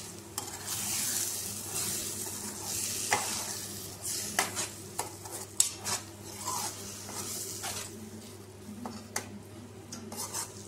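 A spatula stirring and breaking up eggs in a sizzling tomato-onion masala in a kadai, with irregular sharp clicks and scrapes of the spatula against the pan over a steady sizzle.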